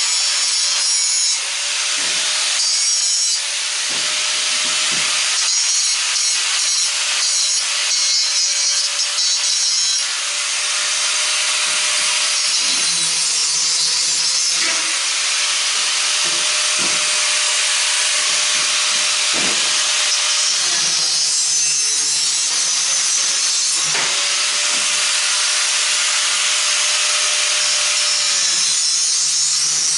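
Angle grinder running continuously as it cuts and grinds through a scrap metal faucet. Its motor whine sags every few seconds as the disc bites into the metal. The blade is worn and due for changing.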